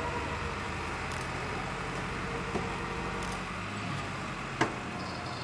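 Flatbed tow truck's engine idling steadily, with a small knock midway and a sharp knock about four and a half seconds in.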